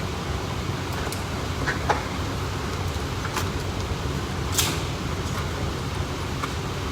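Scattered gunshots at a shooting range: single sharp cracks at irregular intervals, the loudest about halfway through, over a steady low rumble.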